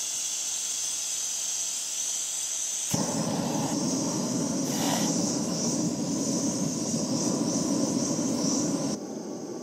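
Canister camping gas stove: gas hissing from the burner, then a sharp click about three seconds in as it lights, and the burner flame running with a steady rush. The sound stops abruptly near the end.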